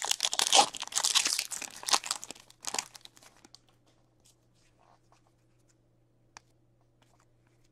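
Hockey trading cards being flicked through and slid against each other in the hands, with papery rustling and crinkling for the first three seconds or so, then only a few faint ticks.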